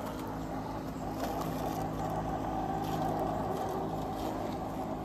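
Terramow Vision robot lawnmower running while it mows: a steady electric hum of its blade and drive motors, growing a little louder about a second in.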